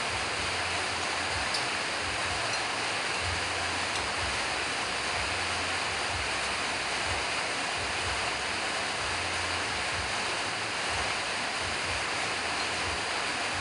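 Steady, even rushing noise with a flickering low rumble underneath, and a couple of faint clicks in the first few seconds.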